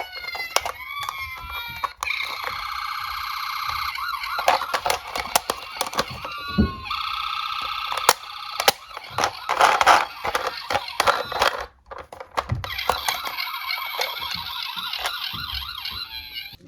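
Toy police-car and ambulance sirens sounding. Some tones glide up and down and others warble fast and steady, switching every few seconds. Sharp clicks and clacks from the toy cars are scattered through.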